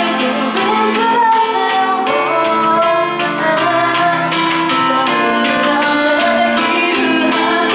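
A woman singing a pop song into a handheld microphone over instrumental backing.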